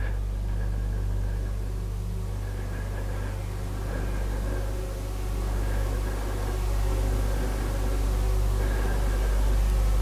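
A steady low electrical hum with a faint high tone coming and going, over a light hiss, growing slightly louder toward the end.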